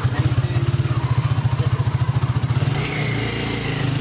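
Small motorcycle engine running with a fast, even putter; about three seconds in, the beat smooths out briefly as the engine note changes.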